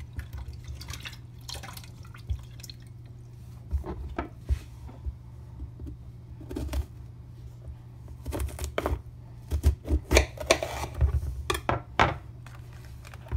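A kitchen knife cutting through a green bell pepper and tapping on a wooden cutting board: scattered crisp cuts and knocks that come thickest in the second half, over a steady low hum.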